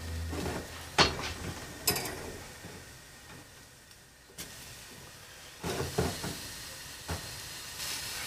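Mushrooms sizzling in a wire-mesh strainer basket over an open gas burner flame: a soft hiss with a handful of sharp crackles spread through it.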